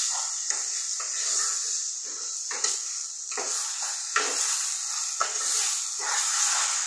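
Water chestnut paste and sugar sizzling in ghee in a nonstick kadai while a wooden spatula stirs it, with a steady sizzle and a scrape of the spatula against the pan about once a second, unevenly spaced.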